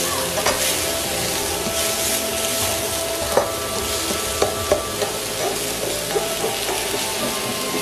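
Vegetables sizzling as they are stir-fried in a wok, turned with silicone-tipped tongs, with the tongs knocking against the pan a few times.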